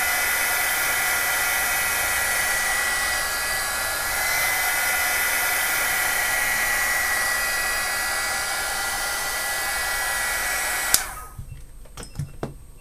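Handheld hot-air blower running steadily with a thin whine over its airflow, heating a GoPro Hero3 lens to soften the glue holding it in. It switches off with a click about eleven seconds in, and a few light knocks follow.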